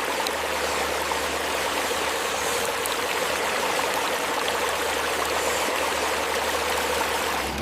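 Running water, a steady rushing flow like a small stream, with a faint low hum beneath it.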